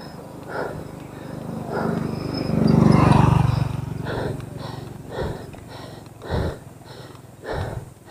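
Cyclist's heavy, regular breathing while pedalling a mountain bike on a climb. A low rumble swells and fades around three seconds in.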